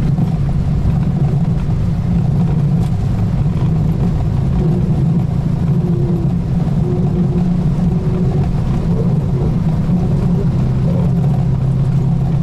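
Steady drone inside a Boeing 737 cockpit during the climb after takeoff: engine and airflow noise with a strong low hum, unbroken throughout.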